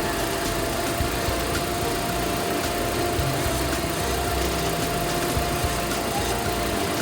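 Mitsubishi L200 pickup engine idling steadily, with a thin steady whine held at one pitch above the running noise.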